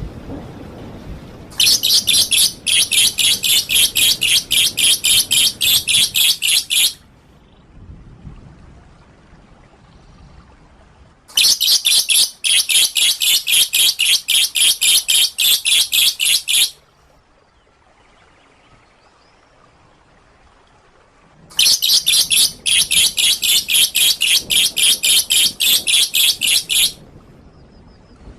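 Songbird masteran recording: three bouts of about five seconds each of fast, sharply repeated high notes ('tembakan' rapid-fire song), with quieter pauses of about four seconds between them.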